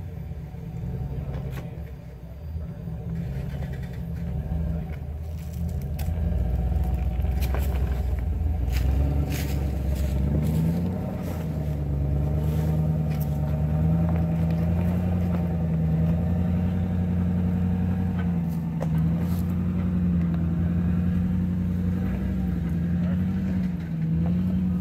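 Lifted Jeep's engine working under load as it crawls up a rock ledge. It grows louder about six seconds in, then holds at raised, slightly wavering revs. Scattered sharp clicks and knocks from the tires and chassis on rock come through in the middle.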